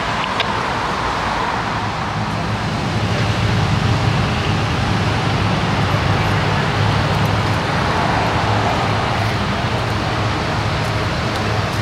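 Steady vehicle engine and traffic noise with a low hum, growing a little louder about three seconds in and then holding steady.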